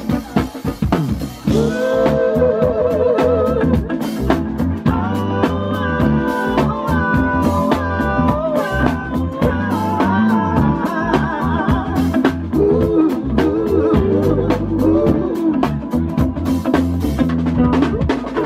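Live band playing a song: electric bass, drum kit with steady snare hits and cymbals, and guitars, with a singing voice carrying the melody.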